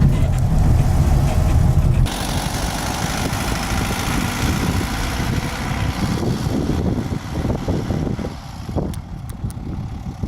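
VW T25 van's engine running with a heavy low rumble, which gives way suddenly about two seconds in to an even rushing noise that eases off near the end.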